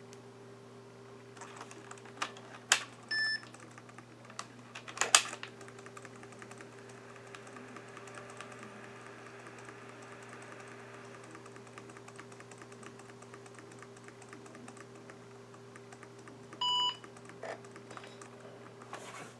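IBM ThinkPad 600E booting: a few sharp keyboard clicks, then short electronic beeps from the laptop's speaker, one higher about three seconds in and a louder, lower one near the end. A steady low hum runs underneath.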